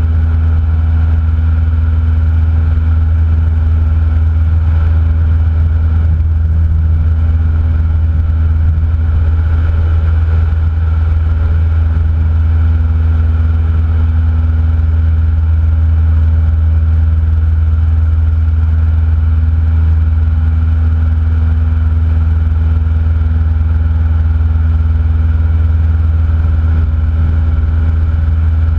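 Cessna 172N's four-cylinder Lycoming O-320 engine and propeller droning steadily at constant power, a loud low hum with no change in pitch or level.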